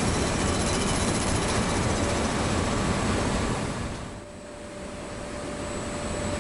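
Steady mechanical rumble of a warehouse package conveyor and sortation system running. It dips briefly about four seconds in, then builds back up with a faint steady hum.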